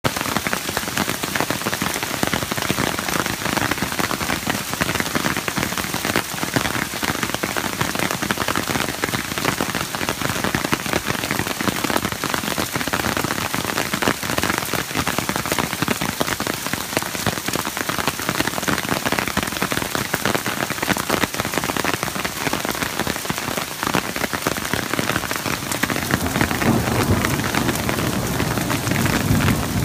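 Heavy downpour pelting hard surfaces, a dense, steady patter of drops. A low rumble builds underneath near the end.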